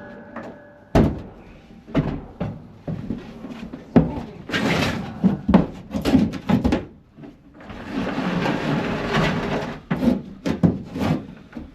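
Sheets of plywood being handled: a run of wooden knocks and thuds, with two longer stretches of scraping and sliding, the longest about two-thirds of the way in.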